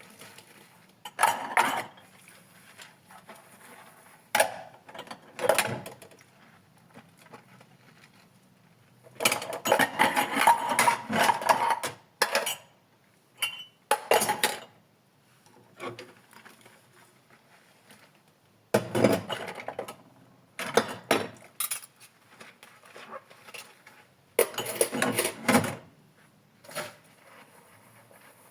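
Dishes and cutlery clinking and clattering as they are hand-washed, in short bursts with quiet gaps between, the longest and busiest stretch about a third of the way in.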